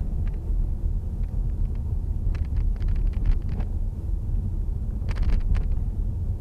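A car driving, heard from inside the cabin: a steady low rumble of engine and tyres on the road, with a few brief clicks and knocks over it, a cluster of them about five seconds in.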